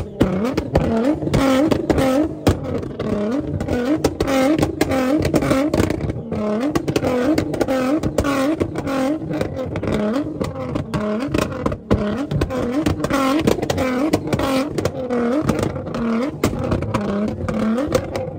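Nissan GT-R's twin-turbo V6 being revved over and over in quick blips, about two a second, the pitch dipping and climbing each time. The exhaust crackles and pops throughout and shoots flames from the tailpipes.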